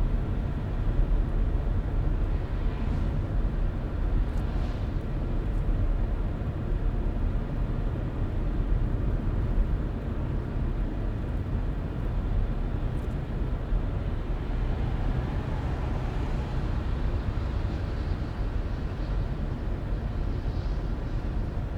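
A car driving steadily along a road: a constant low rumble of engine and tyres with road hiss, and a few faint swells of higher hiss along the way.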